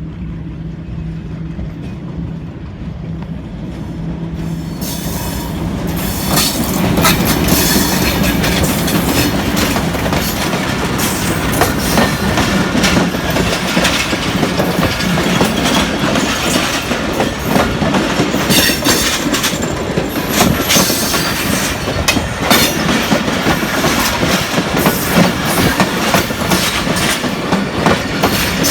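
A Pakistan Railways Millat Express passenger train passes close by. First comes the steady hum of the Hitachi diesel-electric locomotive's engine as it draws near. From about five seconds in, the coaches rattle past, their wheels clattering over the rail joints with a rapid, uneven run of clicks and knocks.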